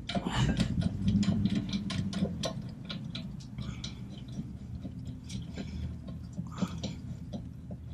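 Irregular small metallic clicks and ticks as the two large rear brake caliper bracket bolts are threaded in by hand and the steel bracket shifts against the knuckle, over a steady low background hum.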